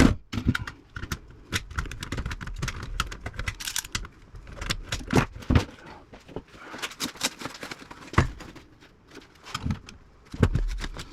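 Pliers working through the point-to-point wiring of a 1950s Philco radio: irregular metallic clicks, snips and small rattles, with a few sharper knocks about halfway through and near the end.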